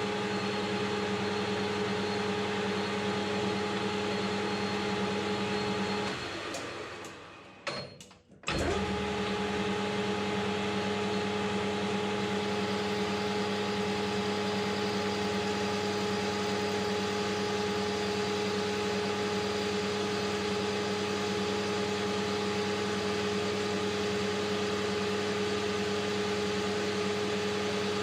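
Metal lathe (AL960B) running steadily while boring out a steel spindle housing, a constant motor hum. The hum dies away about six seconds in and comes back suddenly about two seconds later.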